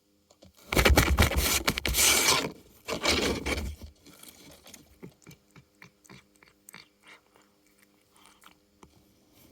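Cardboard being scraped and crunched: two loud stretches in the first four seconds, then a run of light scratches and taps.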